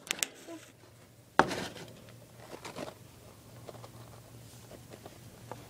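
A guinea pig scurrying over loose cage bedding, making faint scattered rustles and ticks. A sharp knock about a second and a half in is the loudest sound.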